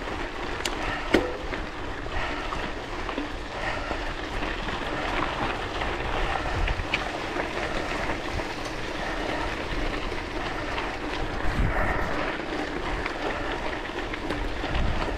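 Bicycle tyres rolling steadily on a gravel forest road, with small rattles and clicks from the bike, including a sharp click about a second in. Uneven low gusts of wind buffet the camera microphone.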